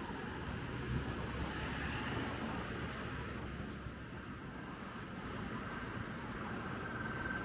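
City street ambience with a steady rumble of vehicle traffic.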